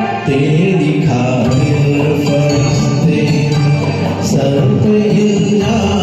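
Music from a karaoke backing track of a Hindi film song, playing continuously with melodic instrumental lines over the accompaniment.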